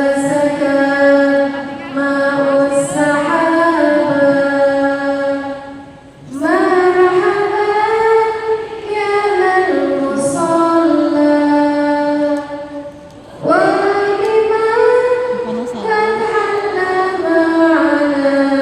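A woman's voice singing unaccompanied in long, drawn-out phrases that bend slowly up and down in pitch, pausing for breath twice.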